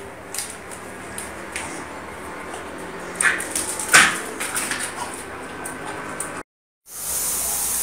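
Rustling and light knocks from a handheld phone on the move, with two short, sharp high-pitched sounds a little after three and four seconds in, the second the loudest. The sound drops out briefly near the end, and a steady hiss follows.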